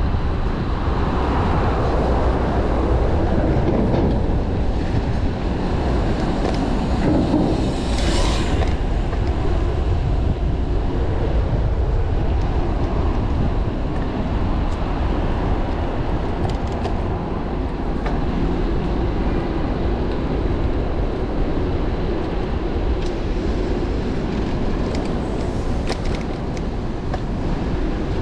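Steady low wind rumble on the microphone and road noise from a bicycle riding through city traffic, with a brief hiss about eight seconds in.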